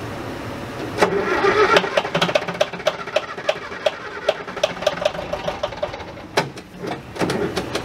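Bobcat 825 skid steer engine cranking on the starter after a shot of ether, a fast even beat that fires unevenly and almost catches, then stops about six seconds in.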